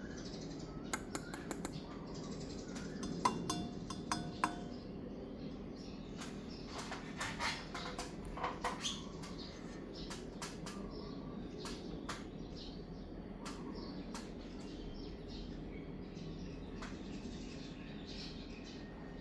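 SMC H56 56-inch industrial ceiling fan running with a steady low hum, with scattered short bird chirps and clicks over it.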